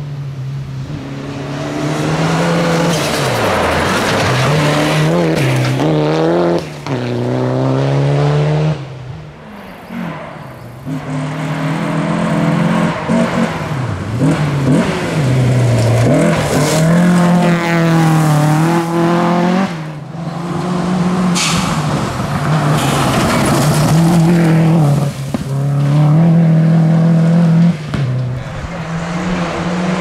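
Rally cars on a gravel stage passing one after another, engines revving hard. The engine pitch climbs through each gear and drops sharply at every shift or lift, many times over.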